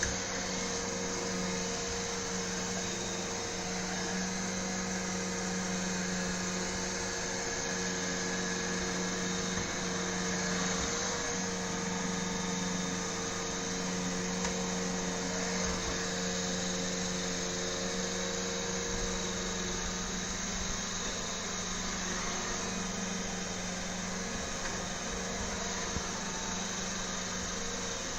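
iRobot Roomba i7 robot vacuum running: a steady motor hum with a whirring hiss of suction and brushes, unchanging in level.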